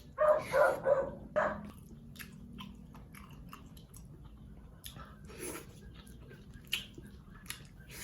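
A dog barks several times in the first second and a half. After that come eating sounds: chewing and small clicks.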